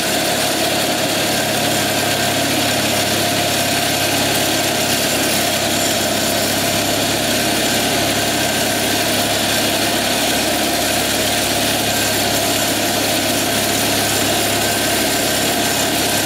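Simplicity Sunstar garden tractor's 20 hp Kohler Magnum twin-cylinder engine running steadily while the tractor drives along in forward.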